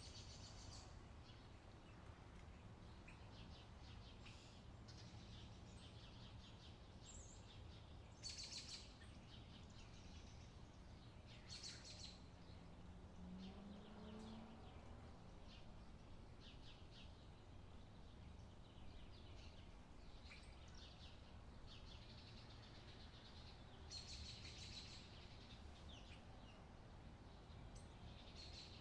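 Near silence: faint birds chirping now and then over a low steady background rumble, with a few louder chirps about a third of the way in and again near the end.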